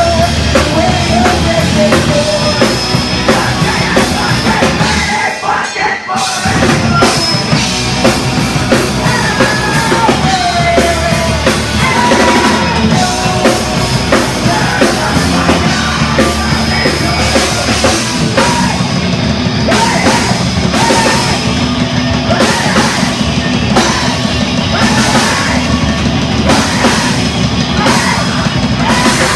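Loud rock music with a full drum kit, a dense, heavy band sound, which drops out briefly about five seconds in before carrying on.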